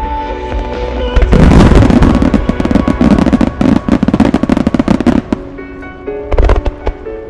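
Aerial fireworks finale: a dense barrage of shells bursting with rapid bangs and crackling, from about a second in to about five seconds in, over the display's music; a few more bangs follow near the end.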